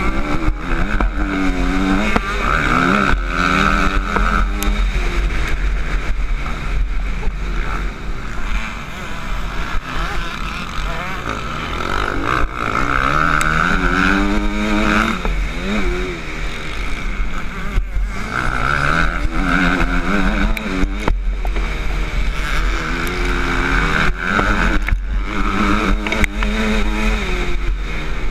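Motocross bike engine heard from onboard, revving hard and backing off again and again as the rider accelerates, shifts gear and slows for turns. The pitch climbs in runs of a few seconds with short drops between them.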